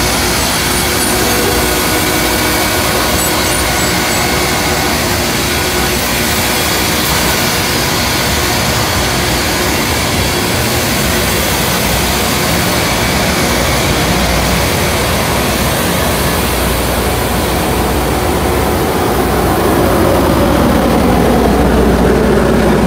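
Loram RG-401 rail grinder at work: its rotating grinding stones against the rail, together with the train's engines, make a loud, steady grinding noise. The noise grows slightly louder near the end.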